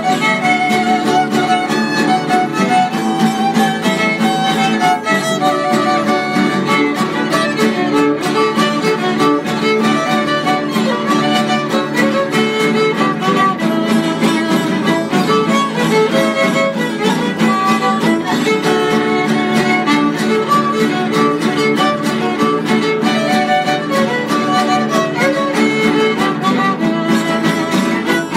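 Instrumental folk string music: a violin carrying a wavering melody over strummed acoustic guitars keeping a steady rhythm, playing continuously.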